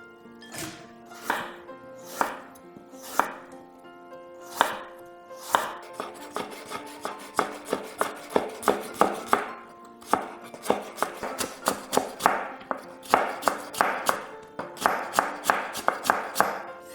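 Knife chopping vegetables on a cutting board: slow single cuts at first, then quicker runs of about three to four chops a second. Soft background music plays underneath.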